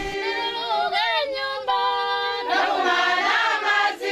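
Several voices singing together without instruments, holding notes and sliding between pitches.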